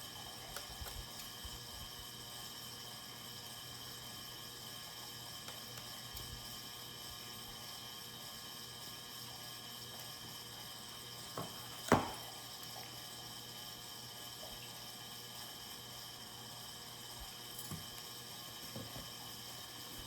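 Steady hiss and hum of a heating and cooling fan, with a few faint clicks and one sharper crackle about twelve seconds in from cutting and handling sticky contact paper.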